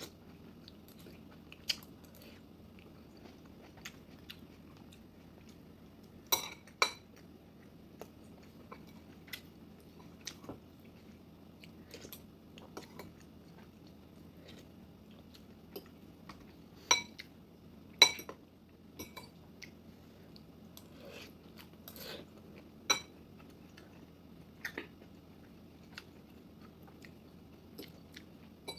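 A person eating a meal: quiet chewing, with sharp clinks of cutlery on a plate or bowl every few seconds.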